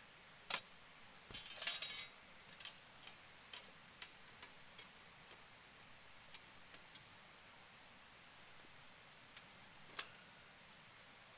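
Wood fire crackling in a small fire pit: scattered sharp pops and ticks at irregular intervals, with a dense burst of crackling about a second and a half in and a louder snap near the end.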